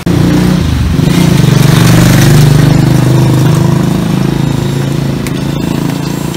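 A motorcycle engine running close by, loudest about two seconds in and then slowly fading.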